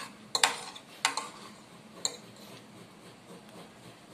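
Metal spoon and fork clinking against a plate: a handful of sharp clinks within about the first two seconds, the last one ringing briefly.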